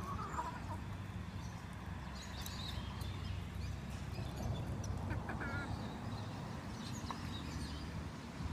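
Chickens clucking with a few short, scattered calls, over a steady low rumble.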